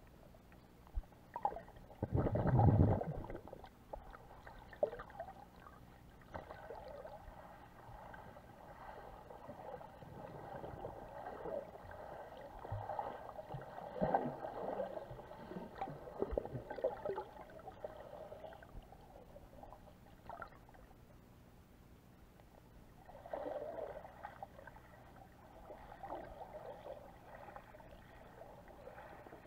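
Underwater sound picked up by an action camera sealed in its waterproof housing: muffled, irregular gurgling and swishing of water. A louder, low rush comes about two and a half seconds in, with smaller surges later.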